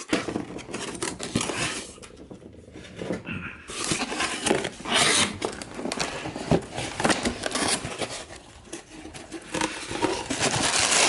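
Packaging being handled and opened: irregular rustling and crinkling, with scattered clicks and knocks.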